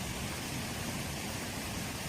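Steady rain: an even hiss of rainfall.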